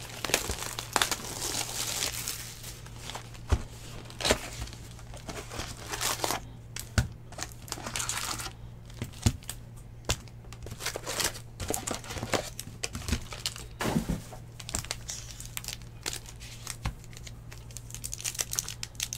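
Plastic wrappers of Bowman baseball card packs being torn open and crinkled by hand, with irregular crackles and sharp clicks, along with some cardboard box handling.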